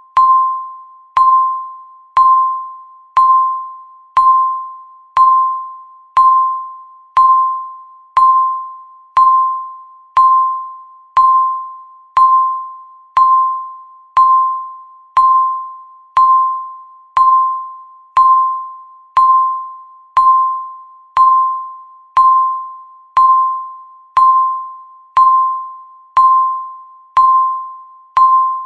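Countdown timer beep sounding once a second, one for each second ticked off. Each beep is a single mid-pitched electronic tone, struck sharply and fading away like a chime.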